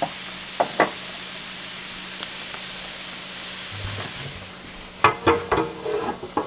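Cabbage sizzling steadily in a cast-iron skillet, with a few light clicks in the first second. From about five seconds in, a metal baking sheet clanks and rattles several times as it is laid over the skillet as a makeshift lid.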